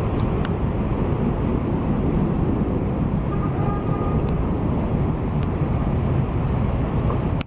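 Steady low rumble of outdoor street ambience, with a faint brief tone about halfway through.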